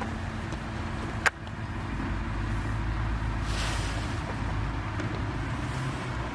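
A steady low engine rumble in the background, with a single sharp snap about a second in.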